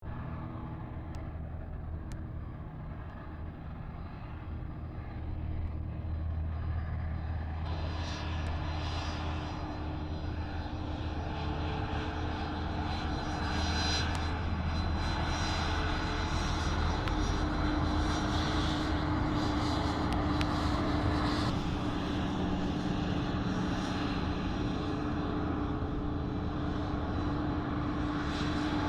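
Airplane engine noise: a low drone that grows louder about eight seconds in, then holds steady with a humming tone.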